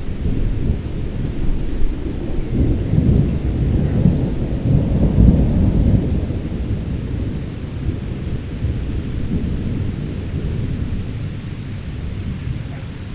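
Thunderstorm: a long roll of thunder rumbling, loudest about five seconds in and slowly dying away, over steady heavy rain.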